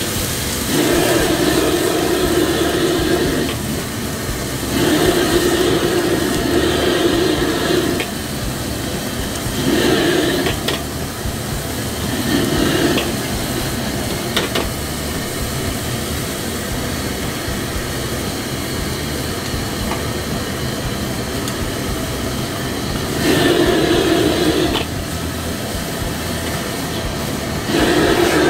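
Restaurant wok burner roaring steadily under a carbon-steel wok during stir-frying, swelling louder in several bursts, with food sizzling and a few sharp clacks of the metal ladle against the wok.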